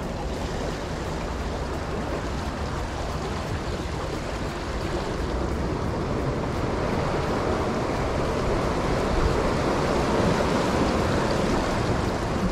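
Small ocean waves washing against the rocks of a jetty, a steady rushing surf that swells a little about two-thirds of the way through, with a low rumble of wind on the microphone.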